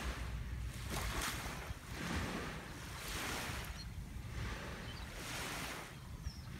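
Small waves lapping and washing up on a sandy beach, a soft wash swelling and fading every second or so. Under it is a low rumble of wind on the microphone.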